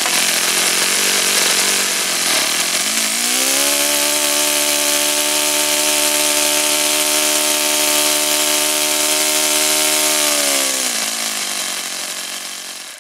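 OS FS-48 Surpass four-stroke model glow engine running at high speed, then throttled back about three seconds in to a lower, steady speed, and fading out near the end. It transitions alright but has no low end at all, a symptom of an air intake leak.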